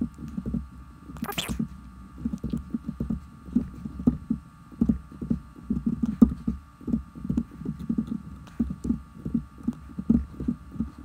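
Fast-forwarded audio of a man's voice, sped up so that it comes out high and squeaky like a chipmunk in a brief snatch about a second in, over a rapid, continuous low patter.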